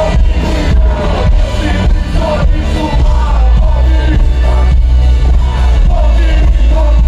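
Live hip-hop concert music from a festival sound system, loud, with a heavy bass, a steady beat and a voice singing over it.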